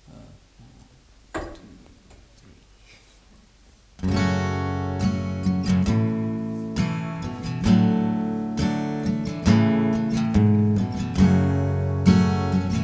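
A few seconds of quiet room with one light tap, then an acoustic guitar starts strumming chords in a steady rhythm, about four seconds in.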